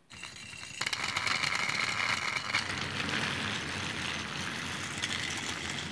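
Battery-powered toy Thomas the Tank Engine switched on and running, its motor and gears whirring with a fast, steady rattle of clicks as it pulls a long train of cars along plastic track. The sound cuts in suddenly at the start and gets louder about a second in.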